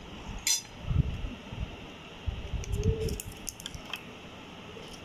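Kitchen handling sounds between condiment additions: a sharp clink about half a second in, then a run of light clicks and ticks near the middle, over faint low knocks, from bottles and a steel spoon being handled at a glass bowl.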